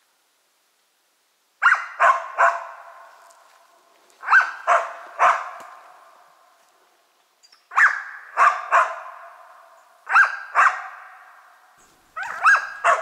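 Laika dog barking at a squirrel up a tree, in groups of two or three sharp barks about every two and a half seconds, each trailing off in echo. The barking starts after a short silence.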